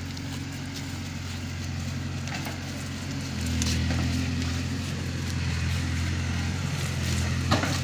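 Diesel farm tractor engine running steadily, getting louder about three and a half seconds in, with a single sharp knock near the end.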